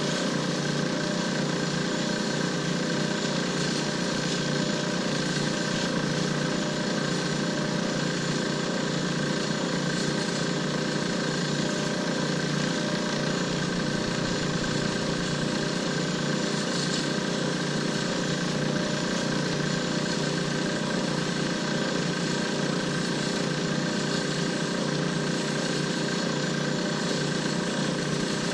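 Lathe motor running steadily at constant speed, a continuous hum with a high whine.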